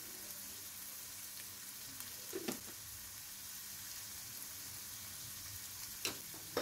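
Diced potatoes, quince and onions sizzling steadily in oil in a wok, with two short taps, one about two and a half seconds in and one near the end.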